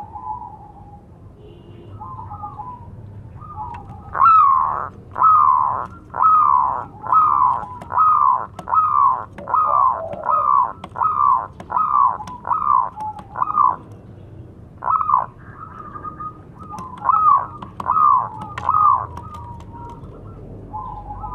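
Zebra dove (perkutut) calling: a few soft warbling coos, then a fast run of about fifteen short, loud notes, each falling in pitch, about three every two seconds, and after a pause a few more. This is the perkutut's calling song, used to lure other zebra doves.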